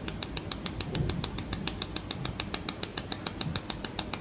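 Pulsed YAG laser welder firing on a mould part, each laser pulse a sharp tick at a steady rate of about eight a second.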